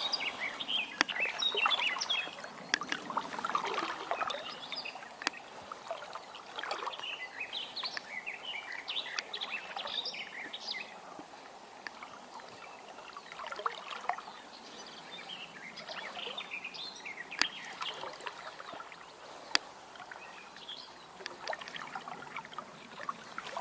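Small birds chirping and singing on and off over the steady sound of a flowing river, with a few sharp clicks.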